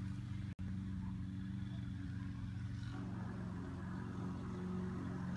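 Steady low engine hum, like a vehicle running at idle, which cuts out for an instant about half a second in.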